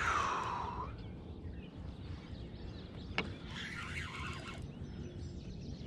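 Outdoor lake ambience with steady low wind-and-water noise and bird calls: a louder falling call in the first second, then fainter chirps. A single sharp click comes about three seconds in.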